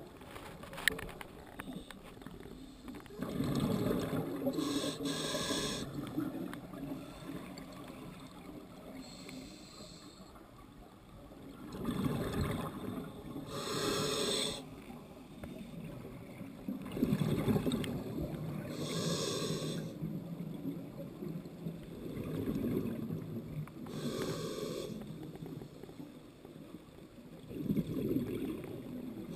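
Scuba diver breathing through a regulator underwater: a hiss on each inhale and a rumbling burst of exhaled bubbles, repeating about every five seconds.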